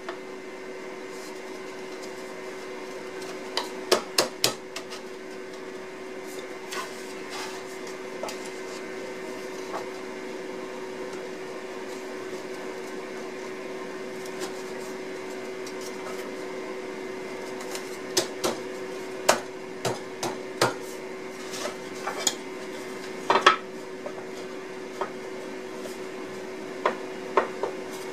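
Hardwood boards knocking and tapping against each other as a router-cut through-dovetail joint is pushed together by hand, a snug fit. The knocks come irregularly, singly and in short clusters, over a steady hum.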